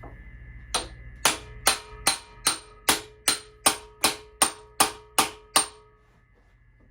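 Hammer striking a hand impact driver, set to loosen, in a seized Phillips screw in a Honda engine's cam cover: thirteen quick, even blows, about two and a half a second, each with a short metallic ring.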